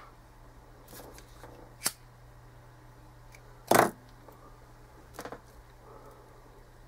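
A few small clicks from tools being handled at a fly-tying bench, with one louder short rasp a little past the middle, over a faint steady low hum.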